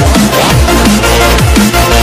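Background electronic drum-and-bass music with a steady beat and falling bass sweeps.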